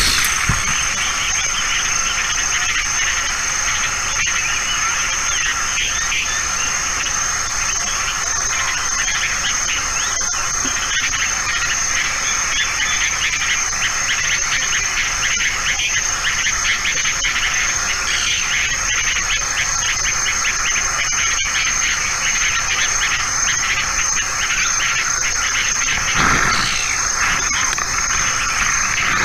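Continuous chorus of insects chirping, with a constant high-pitched tone above it and one brief louder noise near the end.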